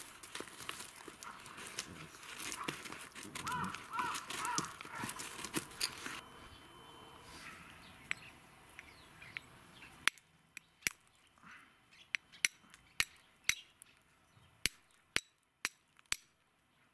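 A knife shaving thin curls off a stick of wood for kindling, with crows cawing. After about ten seconds comes a run of about a dozen short, sharp strikes of a striker on a ferrocerium fire steel.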